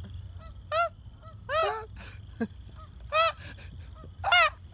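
Goose honking: four loud, short honks spread across a few seconds, with fainter calls between them.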